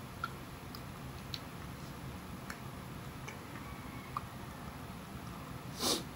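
Quiet mouth sounds of a man eating a banana Melona ice cream bar: a few faint scattered smacks and clicks over low room noise, then one short, louder burst of noise near the end.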